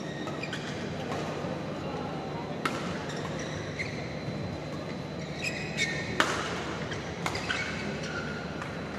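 Badminton rackets striking a shuttlecock during a rally, a handful of sharp hits with the loudest about six seconds in, among high, brief squeaks of shoes on the court floor. Steady background noise of a large hall runs underneath.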